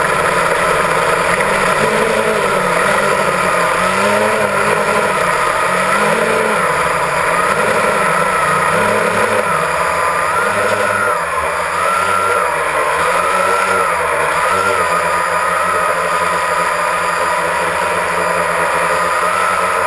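Multirotor camera drone's motors and propellers whirring steadily, the pitch swinging up and down about once a second as the motors adjust, then holding level for the last few seconds.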